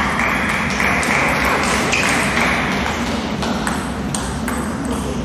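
Table tennis balls clicking on tables and bats, irregular sharp ticks two or three a second over a steady hall background.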